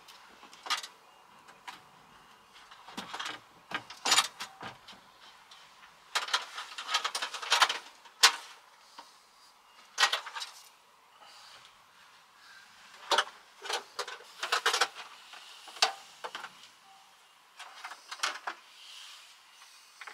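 Irregular clatter of a gas hob being worked loose and lifted out of a worktop: sharp clicks, knocks and short rattles of metal parts being handled, in bursts with short quiet gaps between them.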